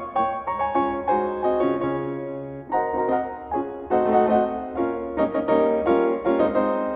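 Piano music, notes struck in a flowing pattern with a pause in the attacks about two to three seconds in.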